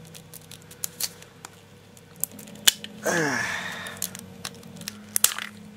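Scattered small, sharp clicks and cracks of ABS 3D-print support material being picked and snapped off a printed part by hand. A short falling voice-like sound comes about three seconds in.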